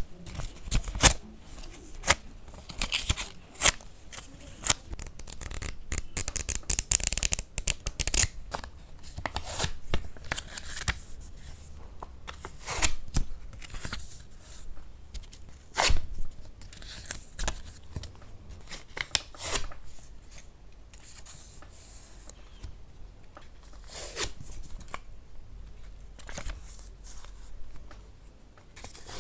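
Close-miked sticky ASMR sounds: an irregular run of short crackling clicks and peels as something tacky is pressed and pulled apart, with brief hazier stretches in between.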